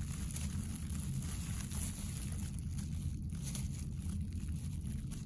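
A steady low hum, with faint small clicks and rustles from dissecting scissors snipping fat and muscle off a cow eye and thin plastic gloves crinkling.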